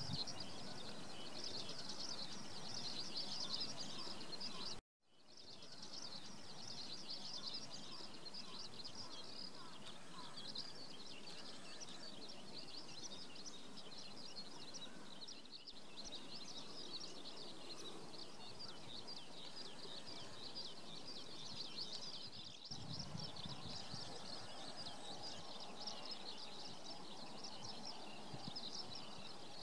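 Dense chorus of many small birds chirping over one another, cutting out briefly about five seconds in.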